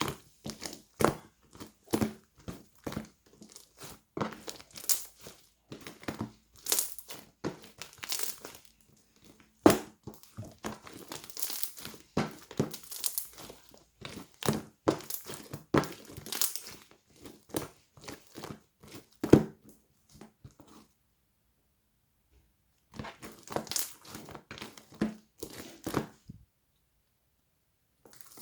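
Wrapping material crinkling and rustling as it is handled by hand, in quick irregular bursts. The handling stops twice near the end, with short silences.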